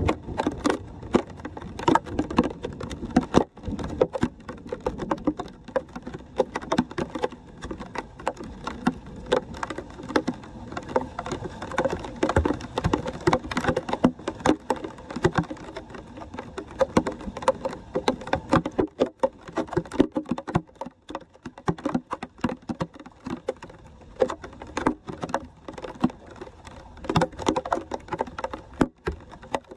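Shallow floodwater pouring and splashing through a street storm-drain grate, an irregular sloshing that goes on throughout, with feet splashing in the water as debris is cleared off the grate.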